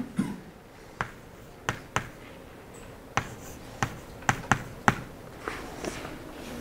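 Chalk tapping against a blackboard while an equation is written: a string of sharp, irregular clicks, about nine in all, bunched closer together around the middle.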